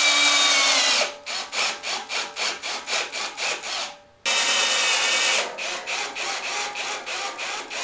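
Cordless drill with a hex nut-driver bit driving self-drilling hex-head screws into 18-gauge galvanized sheet steel. The motor runs with a whine that falls in pitch as the screw bites and seats, then gives a rapid train of short pulses, about four a second. The same pattern comes again about four seconds in.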